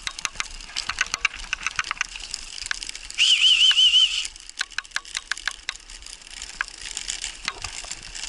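Wheels and frame of a dog-drawn rig clicking and crackling over a rough, leafy forest dirt track. About three seconds in comes a loud trilled whistle lasting about a second.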